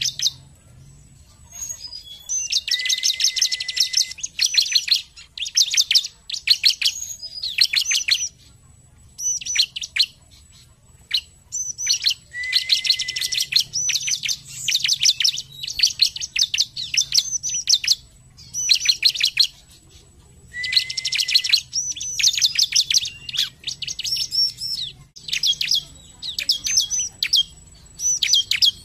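Bar-winged prinia (ciblek) singing in repeated bouts of rapid, high chirping trills with short gaps between. Three longer runs of fast notes each open on a held lower note.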